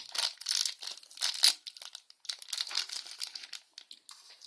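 Thin plastic wrapping crinkling and crackling in the hands in quick irregular rustles as a Kinder Surprise egg's toy packet is opened.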